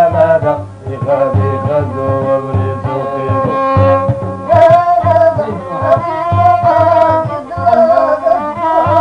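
Moroccan folk music: a violin, bowed held upright on the knee, carries a bending melody over a steady beat of hand-struck frame drums.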